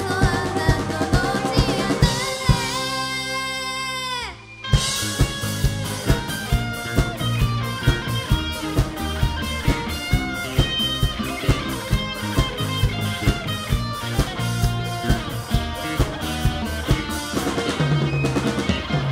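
Band playing live on drum kit, bass and electric guitar. Near the start a pitch slides steadily downward for about two seconds and the music drops out for a moment. The full band then comes back in over a steady drum beat.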